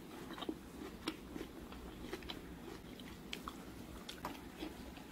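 Faint, irregular clicks and crackles of a clear plastic food container being handled.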